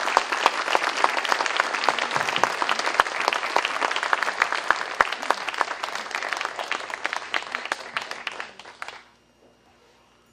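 Audience applauding, a dense spatter of many hands clapping that dies away about nine seconds in.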